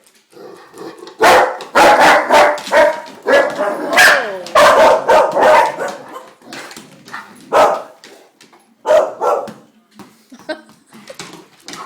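Black Russian Terrier barking loudly, a rapid run of barks from about a second in to around six seconds, then a few more scattered barks.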